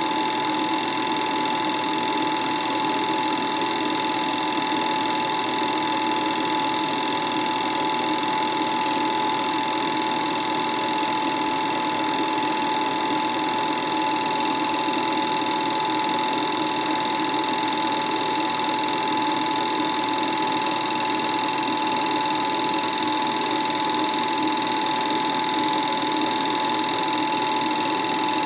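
Film projector running steadily, an even mechanical whir with a constant high hum and no change in speed.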